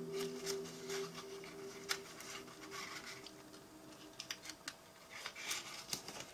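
A sheet of origami paper rustling and crinkling under the fingers as it is folded and pressed, with short crackles at irregular moments. A held background music tone fades out in the first couple of seconds.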